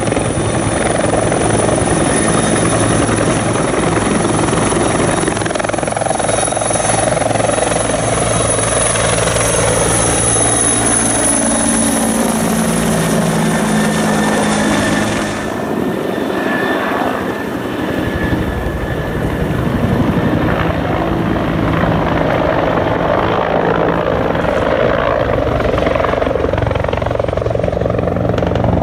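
Firefighting helicopter's turbine engine and rotor running loud and steady while it hovers low over the water, filling its tank through a hanging snorkel hose. Its tones fall in pitch in the middle, and the sound changes abruptly about halfway through as the scene shifts to the helicopter flying over the fire.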